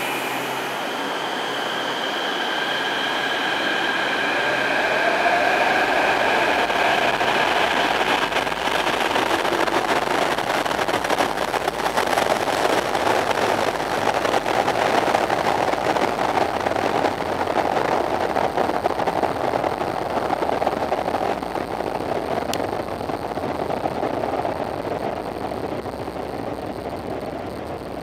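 Line 5 Série 500 metro train pulling out of an underground station. It starts with a high electric whine that rises in pitch as it accelerates, then a steady rumble of the cars passing builds up, and it fades toward the end as the train goes into the tunnel.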